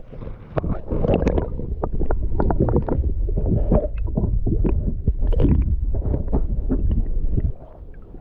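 Sea-Doo FishPro personal watercraft under way on the water: a loud low rumble with many quick knocks and splashes as the hull meets the water. It drops away suddenly about a second before the end.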